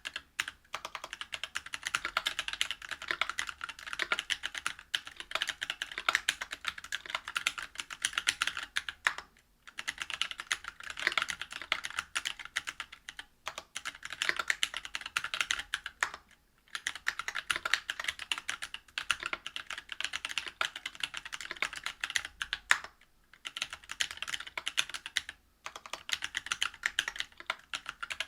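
Fast typing on a Whale 75 mechanical keyboard with stock Cannonkeys Lilac Tactile 65g switches, a brass plate and GMK keycaps: a dense run of keystroke clacks, broken by brief pauses every few seconds.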